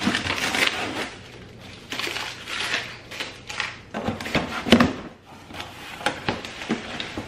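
Cardboard box flaps being peeled and pulled open and the packed items inside handled: an irregular run of scraping, crinkling rustles with sharp clicks, loudest about four and a half seconds in.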